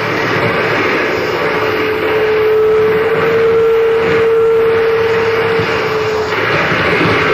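Harsh noise from a live noise performance: a loud, dense, unbroken roar, with a steady held tone running through it from about a second and a half in until about six seconds.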